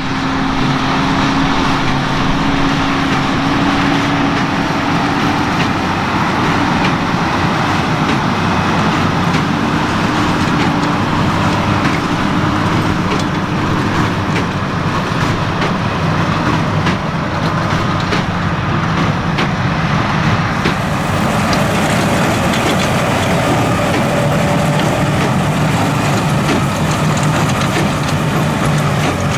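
Tractor engine running steadily under load with the machinery of a large square baler working straw, faint clicks running through it. A brighter hiss comes in about two-thirds of the way through.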